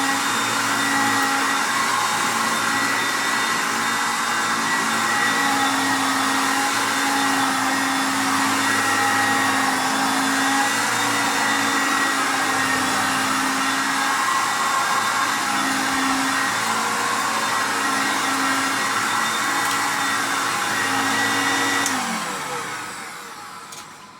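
Hoover Concept One upright vacuum cleaner running steadily while vacuuming. About 22 seconds in it is switched off and the motor winds down, its tone falling as it fades.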